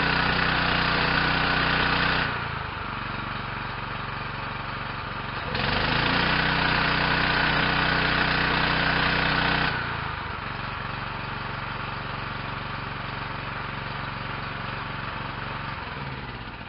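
Yamaha PW4040 pressure washer's 357 cc gasoline engine running: twice it speeds up with a loud hiss of spray as the gun's trigger is pressed, for about two and then four seconds, and drops back to a slower idle when the trigger is released, the washer's automatic idle-down. The engine dies away near the end.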